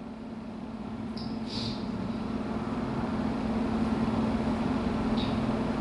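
A steady low hum under a wash of room noise that slowly grows louder, with a few faint short hisses.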